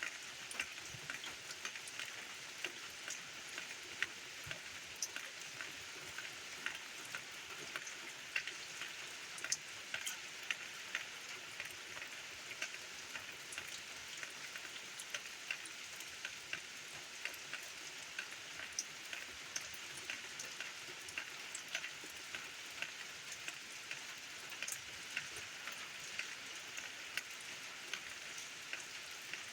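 Steady rain: an even hiss dotted with many irregular ticks of single drops striking close by.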